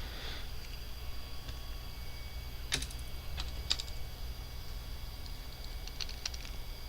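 Plastic LEGO pieces clicking as they are handled and pressed together: a few sharp clicks, two clearer ones about a second apart near the middle and fainter ones later, over a steady low hum.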